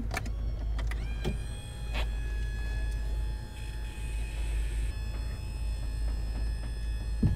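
Powered tender-garage door on a Princess V42 motor yacht closing. There are a few clicks as the switch is pressed, then the door's drive motor runs with a steady whine for about six seconds and stops near the end.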